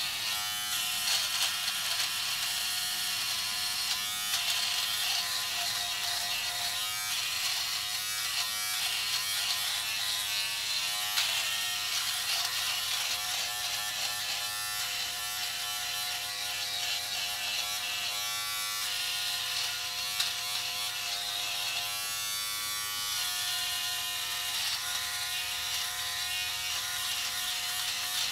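Philips Norelco Multigroom 7000 electric trimmer running with a steady buzz as it is drawn over neck stubble. Its pitch wavers now and then as the head drags through the hair.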